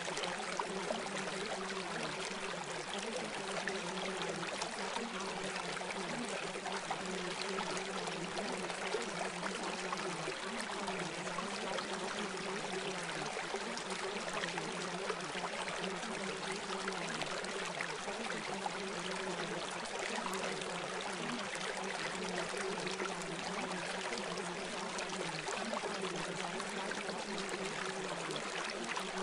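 Steady running-water noise, like a stream, serving as the masking background of a subliminal track. Faint low tones underneath step in pitch every few seconds.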